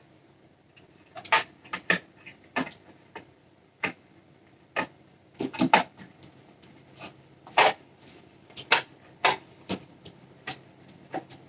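Irregular sharp plastic clicks and knocks of a visor being worked onto an Icon Airflite motorcycle helmet's visor mount, with a cluster of louder knocks around the middle.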